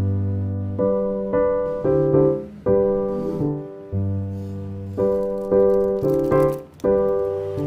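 Background piano music: a slow melody of struck notes, a new one about every half second to second, over held bass notes.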